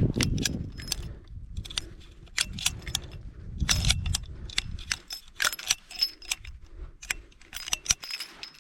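Irregular metallic clicks and clinks with short bright ringing: a revolver being handled after firing, its spent .45 Colt brass cases knocking and rattling against metal as they are worked out of the cylinder.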